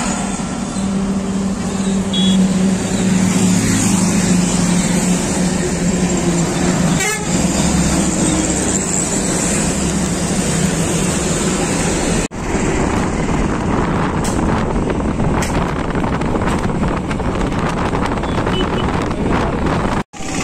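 Steady engine, tyre and wind noise of a vehicle driving along a busy highway, heard from on board, with passing traffic. The sound cuts out abruptly twice, about twelve seconds in and near the end.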